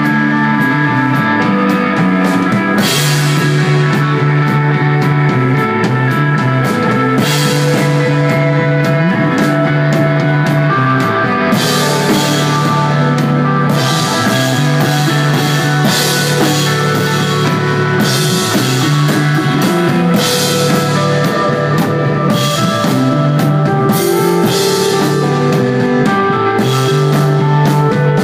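Live instrumental desert rock from a guitar, bass and drums trio: sustained electric guitar notes over a steady bass line, with cymbal crashes ringing every few seconds.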